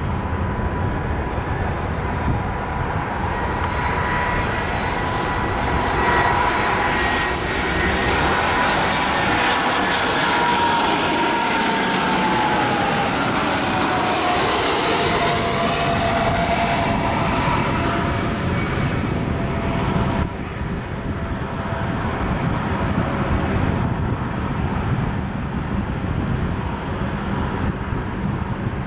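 Airbus A319 twin-jet airliner on landing approach passing low overhead, its CFM56 turbofan engines whining and rushing. The whine drops in pitch as the aircraft goes by. After about 20 s it gives way to a lower, more distant jet roar as the airliner nears touchdown.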